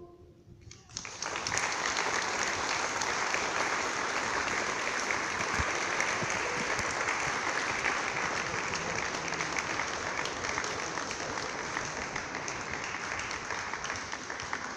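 Audience applauding in a cave after the choir's final chord; the clapping starts about a second in and goes on steadily.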